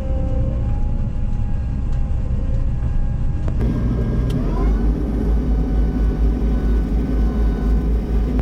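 Combine harvester's diesel engine running as it drives. About three and a half seconds in, the sound cuts abruptly to a deeper, louder engine rumble that pulses a few times a second.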